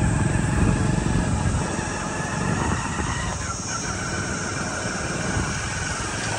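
Motorcycle running along a rough dirt track, its engine and road noise mixed with wind on the microphone, easing a little after about a second and a half.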